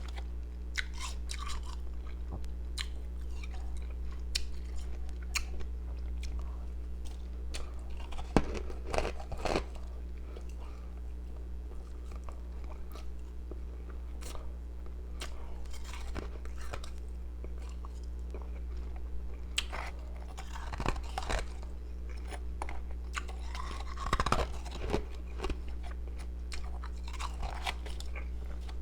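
A person biting and chewing pieces of ice close to the microphone, with irregular crisp crunches that come in denser clusters now and then. A steady low hum runs underneath.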